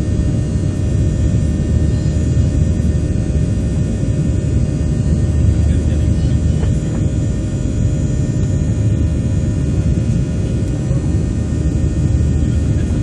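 Boeing 737 cabin noise in the climb after take-off: the twin CFM56 turbofans at climb power and the rush of air make a loud, steady low rumble, with a steady hum tone over it.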